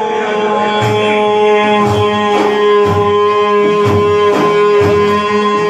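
Devotional praise music: one long held note, with a steady beat of frame drums at about two strokes a second.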